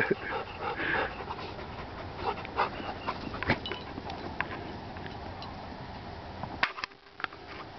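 A dog panting, a few quick breaths in the first second, then a faint steady outdoor haze with scattered light clicks.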